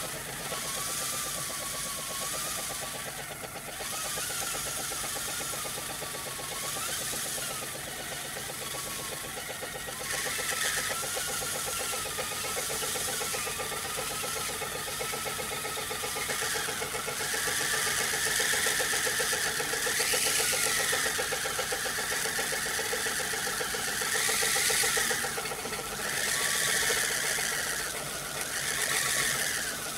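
Brass Hero's steam engine (aeolipile) spinning on steam from its pipe-end jets: a steady hiss of escaping steam over a fast, even whirr. A wavering whistle grows louder about ten seconds in and swells and fades several times in the second half.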